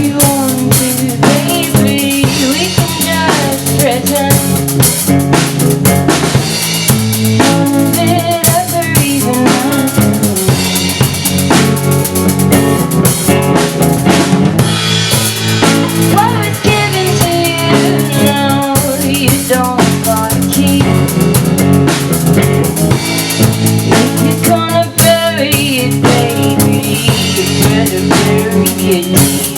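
Guitar and drum kit playing a song together, with the drums driving a steady beat.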